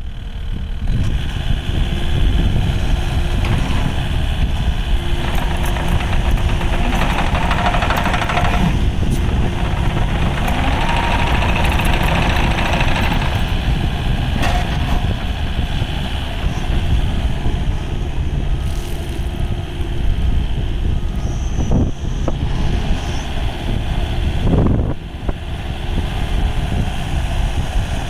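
Diesel engine of a Kubota KX080-4 midi excavator running steadily, with two stretches of louder, higher-pitched noise about seven and eleven seconds in and a couple of sharp knocks later on.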